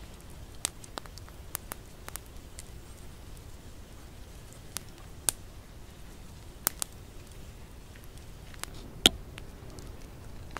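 Wood campfire crackling: sparse sharp pops and clicks at irregular intervals over a low steady background, with one louder knock about nine seconds in.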